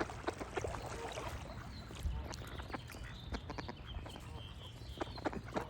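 Ducks on water, with soft, short low calls among many small splashes and clicks as they paddle and dabble. Small birds chirp faintly in the background.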